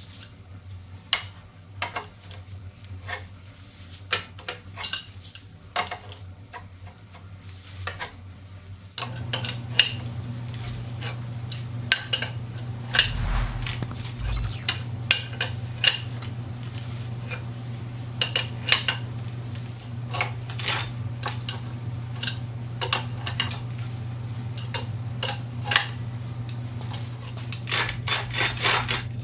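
Irregular metallic clinks and taps of a wrench working the bolts of strut spring compressors, over a steady low hum that gets louder about nine seconds in.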